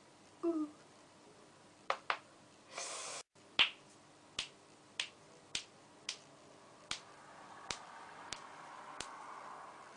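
A run of sharp, single cracking pops, one after another about every two-thirds of a second, fading somewhat toward the end. A pair of quicker cracks and a brief rustle come just before an abrupt cut, and the loudest pop follows right after it.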